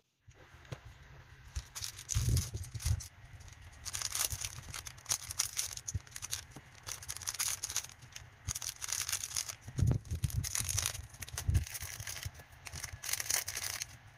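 Crinkly plastic wrappers of individually packed monaka sweets being torn open and handled in irregular rustling spurts, with a few soft knocks as the sweets are set down on a waffle maker's plate.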